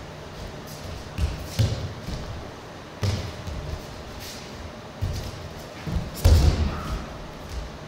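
Bare feet stamping and shuffling on foam mats during standing grip-fighting in jiu-jitsu gis, a series of dull thumps with the rustle of the heavy cotton jackets. The heaviest thumps come about six seconds in.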